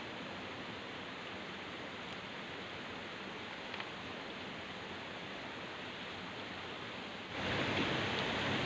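Steady, even hiss of background noise with no clear events, stepping up louder about seven seconds in.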